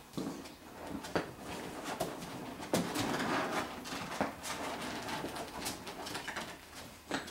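Five-week-old golden retriever puppies making soft little whimpers and coos, among scattered light knocks and taps.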